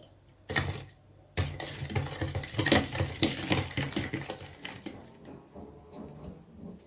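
Kitchenware clattering: a short rattle about half a second in, then a dense run of clinks and knocks for about three seconds that tapers off, over a low steady hum.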